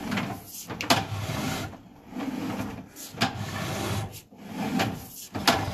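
Sewer inspection camera's push cable being hauled back out of a cast-iron drain, rubbing and scraping irregularly with a few sharp clicks and knocks.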